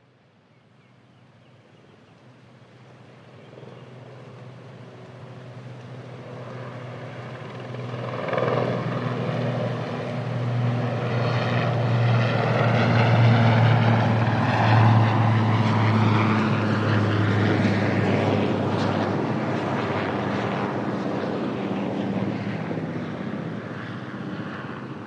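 Helicopter rotor and engine running with a steady low drone and rushing noise. It grows from faint to loud over the first half, then eases off a little toward the end.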